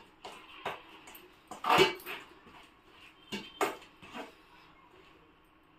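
A steel strainer pressing boiled potatoes against a steel bowl while mashing, giving a string of short scrapes and knocks. The loudest comes about two seconds in, and they die away after about four and a half seconds.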